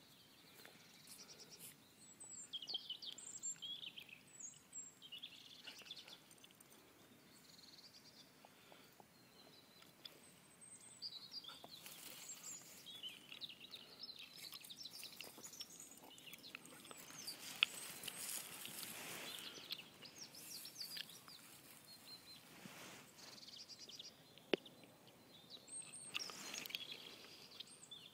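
Faint outdoor ambience: small birds chirping in short calls a few times, with a soft rustling noise through the middle and two sharp clicks.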